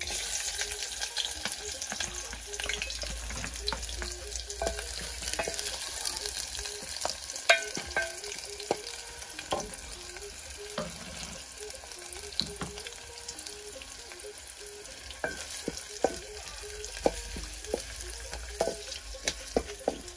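Sliced red onions sizzling in hot oil in an aluminium saucepan, stirred with a wooden spoon that knocks and scrapes against the pan. The sizzle is loudest as the onions go in and settles a little after.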